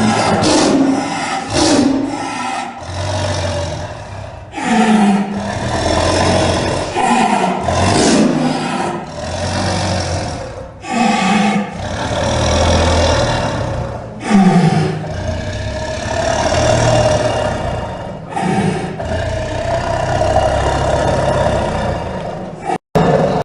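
Tiger roaring and growling: a string of rough, throaty calls about every one to two seconds, many sliding down in pitch, breaking off briefly near the end.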